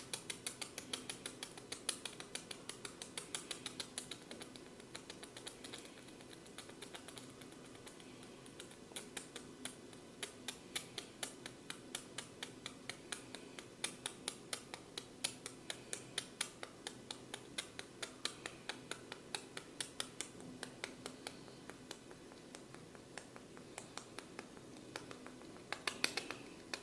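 Quick, even clicking taps from a barber's fingers working the head and ears in a massage, about four a second, with a louder burst of clicks near the end.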